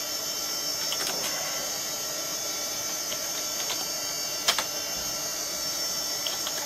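Steady hum and whine of a running vintage PC's fans and hard drive, with a few keyboard key clicks as a short DOS command is typed; the loudest click, about four and a half seconds in, is the Enter key.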